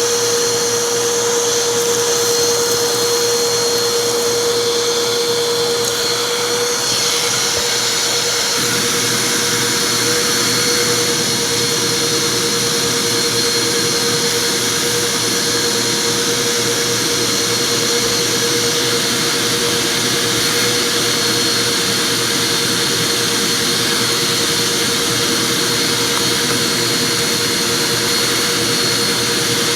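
Vacuum cleaner running steadily with a constant motor whine; about seven seconds in its sound turns fuller and noisier.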